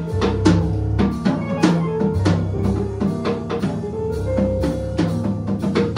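A small band playing an instrumental live: drum kit keeping a steady beat with bass drum and snare under synth bass lines, held keyboard chords and electric guitar.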